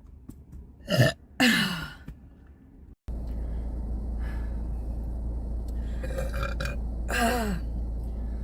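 A woman burping loudly: a short burp about a second in, followed at once by a longer burp that falls in pitch, then another falling burp near the end over a steady low hum.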